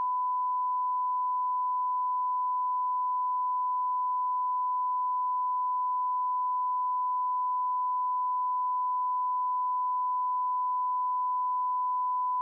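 A single steady electronic tone at about 1 kHz, held without a break: the stand-by tone of a mock Emergency Alert System broadcast.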